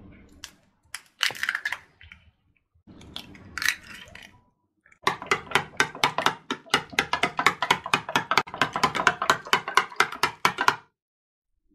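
Eggs being broken into a ceramic bowl, with a few sharp cracks and taps, then beaten briskly with a spoon that clicks against the bowl about six times a second for several seconds before stopping.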